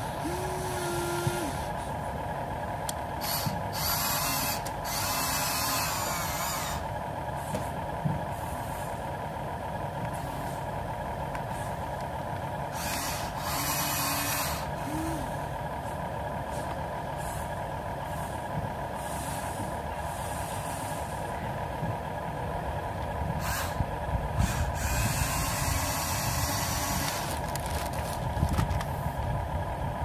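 Small electric motors and plastic gearboxes of radio-controlled toy construction models whirring over a steady whine, with louder bursts several times as the RC dump truck drives back and forth and the excavator arm moves.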